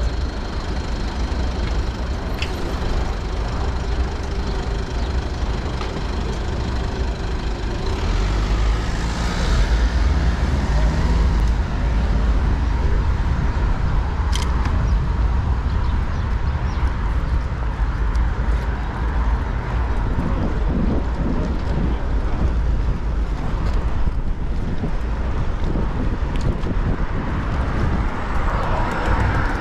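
Wind buffeting a GoPro's microphone on a moving bicycle, over steady city traffic noise, with a couple of sharp clicks.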